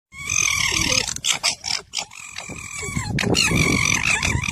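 Loud animal calls in several bouts, with sliding pitch over a noisy background.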